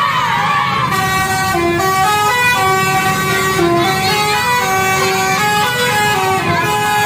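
Basuri "telolet" multi-tone bus air horn playing a melody: a run of held horn notes, each lasting a fraction of a second, stepping up and down in pitch.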